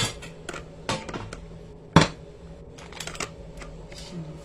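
A few sharp clicks and knocks of things being handled on a kitchen counter, the loudest about two seconds in, over a steady low hum.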